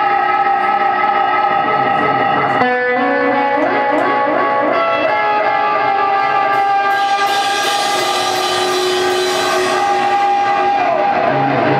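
Rock band playing live with loud, sustained electric guitar chords. The chord changes sharply about three seconds in, followed by a run of short sliding notes.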